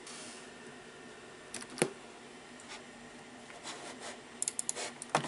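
Sharp clicks of a computer mouse and keyboard over the steady hum of a running Amiga 2000: one click a little under two seconds in, then a quick run of clicks near the end.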